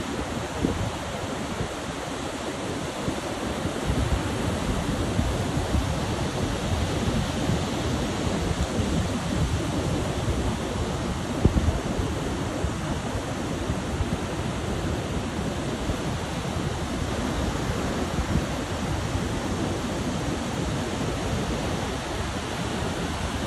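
Surf breaking and washing up on a sandy beach, a steady rushing noise, with wind buffeting the microphone.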